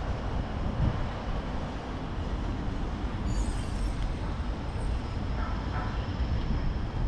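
Steady street noise: a low rumble of traffic, with a brief high squeal about three seconds in.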